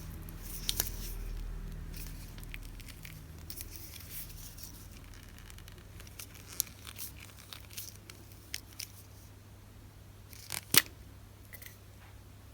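Paper stationery goods and their packaging being handled close up: intermittent rustling and crinkling with light taps, and one sharp click near the end.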